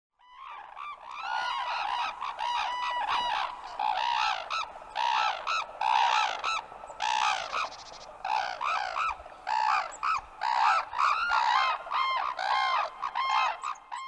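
Red-crowned cranes calling: a long run of loud, ringing calls that rise and fall in pitch, the calls often overlapping one another.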